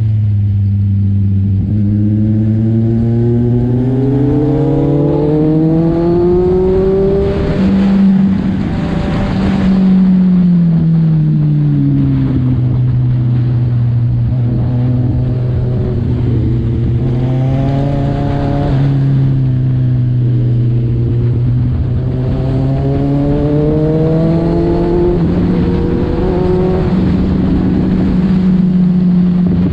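Kawasaki Z1000's inline-four engine and exhaust heard from the rider's seat while riding through curves. The note climbs steadily as the bike accelerates, drops when the throttle is rolled off, and rises and falls again several times, with a rushing hiss swelling twice.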